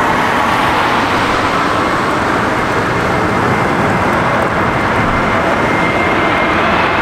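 Jet airliner engines running loud and steady, a continuous rush of noise with a faint high whine coming in near the end.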